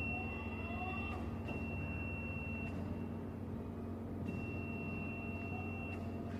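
A 16-inch sliding table saw running steadily with a low motor hum, and a thin high whine that drops out for about a second and a half mid-way and then returns.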